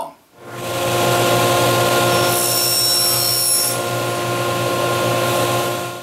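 Electric power saw running steadily with a constant motor hum, with a higher whine added for about a second and a half in the middle.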